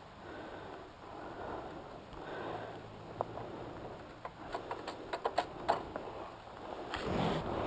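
A person breathing close to the microphone in soft, repeated breaths and sniffs, with a quick run of small clicks and taps about two-thirds of the way in.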